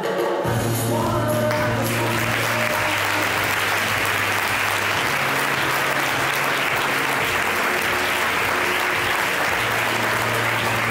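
Audience applauding steadily, as the last notes of a plucked-string song fade out in the first couple of seconds. A low steady hum runs underneath.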